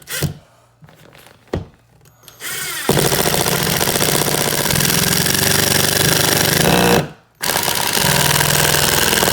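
Power screwdriver driving screws into wood backing, with rapid hammering. It spins up with a short rising whine about two and a half seconds in, runs for about four seconds, stops briefly, then drives a second screw for a few more seconds.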